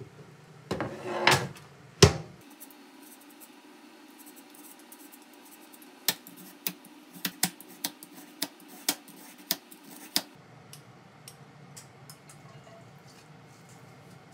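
Stainless steel bowl clattering with a loud metal knock at the kitchen sink, then a handheld julienne peeler cutting a carrot into strips on a cutting board: about nine quick strokes, each ending in a sharp click.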